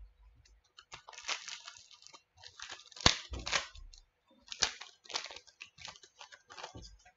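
Trading cards being handled on a table: short rustles, slides and clicks as the cards are shuffled and sorted, with a sharp tap about three seconds in.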